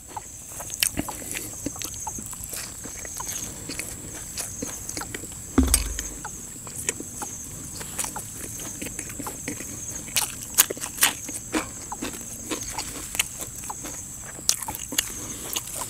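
Close-miked eating sounds: wet chewing, lip smacks and mouth clicks as a man eats a spicy raw-shrimp salad with fresh vegetables by hand. A single dull thump comes about six seconds in.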